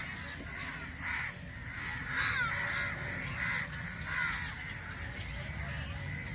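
A bird calling repeatedly outdoors: about six short calls, several of them falling in pitch, over a steady low background rumble.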